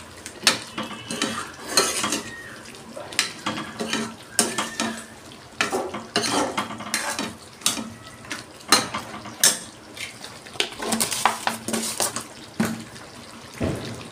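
A metal ladle stirring thick chicken curry in a metal kadhai, scraping and clinking irregularly against the pan's sides and bottom.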